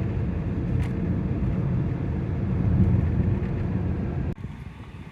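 Road and tyre rumble of the electric-converted BMW E91 estate on the move, heard from inside the car, with one short click about a second in. The rumble cuts off abruptly near the end to a much quieter background.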